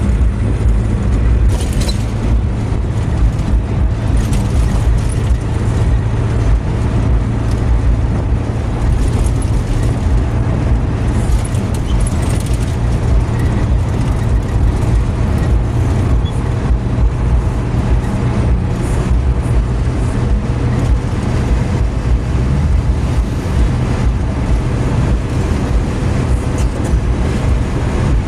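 Car driving at highway speed, heard from inside the cabin: a steady low engine drone under continuous road noise from the tyres.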